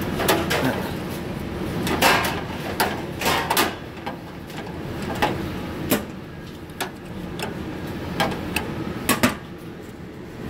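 Metal wrench clinking and scraping against the brass fittings of a gas oven's control valve as a line fitting is worked loose: about a dozen scattered sharp clicks and knocks, irregularly spaced, over a steady background hum.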